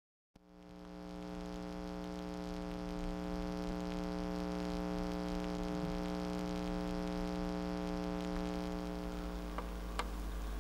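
Steady, ominous droning hum of several fixed tones over a low rumble and light hiss, fading in over the first second and then holding level. A short sharp tick sounds near the end.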